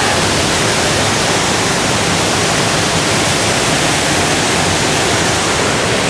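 Waterfall pouring into its plunge pool: a steady, loud rush of falling water.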